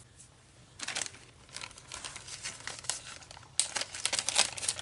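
Clear plastic bag crinkling as it is handled, in irregular short crackles starting about a second in and loudest near the end.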